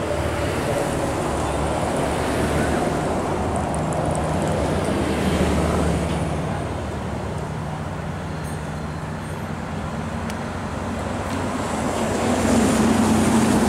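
Heavy diesel trucks passing on an expressway: a steady low engine drone under tyre and road noise, getting louder near the end as an Isuzu truck passes close by.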